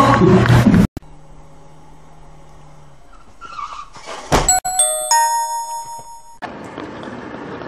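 Motor scooter crash: a sharp loud impact about four seconds in, followed by a couple of seconds of high, ringing squeals as the bike goes down. Before it, a loud noisy passage cuts off abruptly about a second in.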